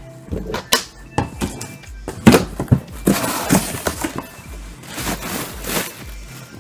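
Rustling and crinkling of packing material with sharp knocks and scrapes of cardboard, as a product box is pulled out of a large shipping box.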